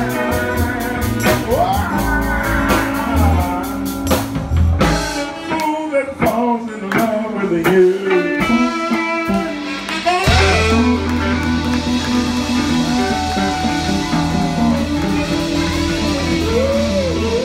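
Live blues-funk band playing: electric guitar lead over drums and bass. About four seconds in the bass drops out for a stop-time break of sharp band hits, and the full groove comes back in about ten seconds in.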